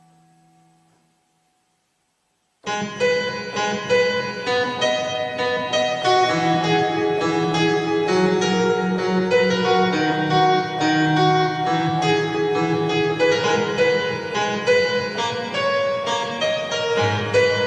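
A held note fades out into a moment of silence, then piano music starts abruptly and runs on as a busy stream of struck notes over a bass line.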